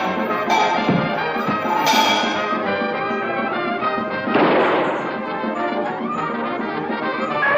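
Background music, with a short noisy crash about halfway through.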